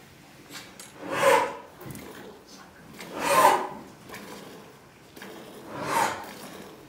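A cow breathing out in three loud, noisy breaths about two seconds apart.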